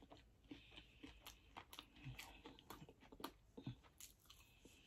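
Faint mouth sounds of someone chewing fried chicken: soft, irregular clicks and smacks of eating.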